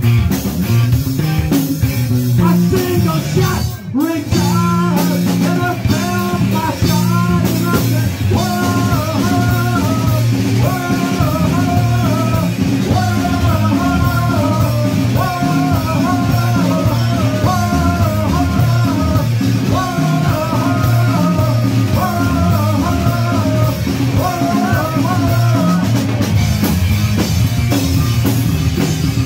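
A live punk rock band playing loud, with drum kit, bass and guitars. A repeating melodic figure runs through the middle of it, and there is a brief break about four seconds in.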